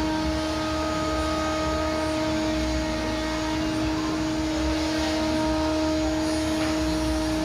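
Steady machine hum with several constant tones that hold at one level throughout.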